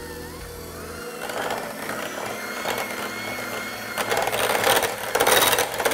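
Electric hand mixer running with its beaters in cream cheese and gelatin in a glass bowl. The motor's pitch rises as it starts up, and the sound grows louder and rougher about four seconds in.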